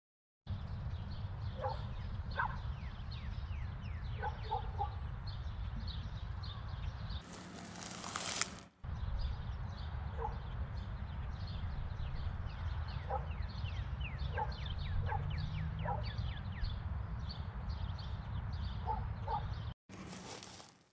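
Outdoor camera-mic sound in dry scrubland: a steady low rumble of wind on the microphone, with birds chirping throughout and giving short repeated calls. A brief loud rush of noise cuts in around the eighth second and again near the end.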